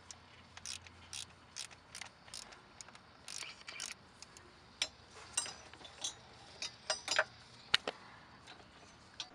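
Socket ratchet clicking in short, irregular runs as the timing belt tensioner bolt is tightened.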